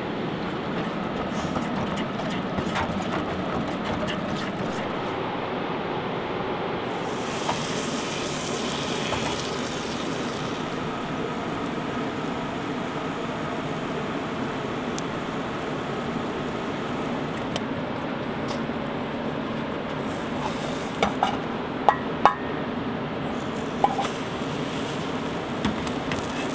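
Pancake batter cooking in a pan on a stove burner: a steady sizzle and hiss. A few sharp clinks of the spatula and pan come near the end as the pancake is slid out.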